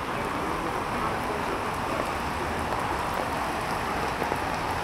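Steady rain falling on a wet city street, an even hiss.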